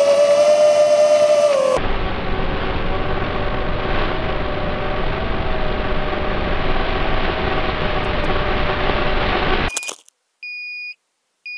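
FPV quadcopter's 2204 2300kv motors and props whining steadily in flight; about two seconds in the sound turns rougher and noisier. Near the end a brief clatter as the quad crashes cuts the motor noise off, and after a short silence its beeper starts sounding short high beeps about once a second, the alarm of a downed quad.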